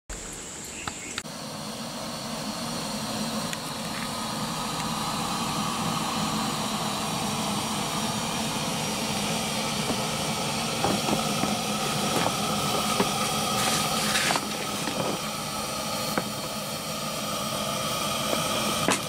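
Kerosene pressure lamp burning with a steady hiss that grows gradually louder, with a few faint knocks in the second half.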